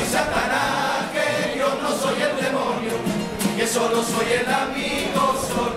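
Chirigota of male voices singing the chorus of their presentation together, with Spanish guitar accompaniment.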